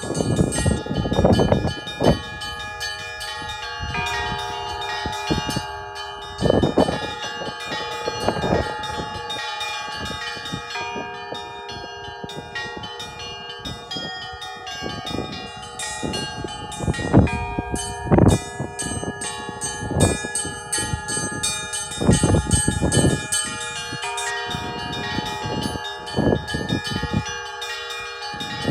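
Russian Orthodox church bells rung together in a full peal (zvon): many bells ringing on with long, overlapping tones, struck again and again, with heavier strokes every few seconds.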